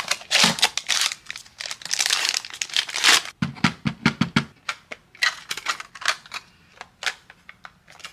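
Instant-camera film packaging being torn open and crinkled. About three seconds in, this gives way to a series of sharp plastic clicks and knocks as the film pack is loaded into the back of an instant camera.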